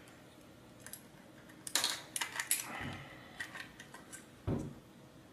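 Small parts of a robot-car kit being handled: clicks and clatter of a metal bolt and plastic chassis and caster pieces in the hands, a cluster of sharp clicks a little under two seconds in, then a few soft knocks and taps.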